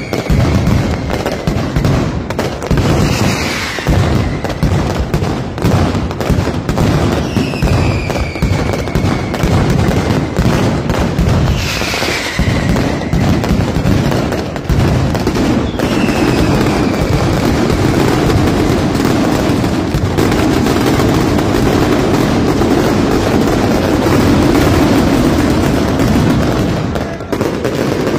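Nocturnal mascletà fireworks: rapid, continuous bangs and crackling of aerial shells, with a few descending whistles about every four seconds. From about halfway the reports pack into one dense, steady roar.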